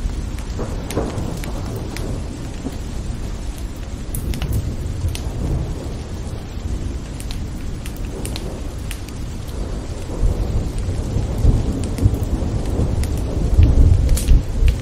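Steady rain with scattered sharp drop ticks and deep rolling thunder, the rumble swelling over the last few seconds.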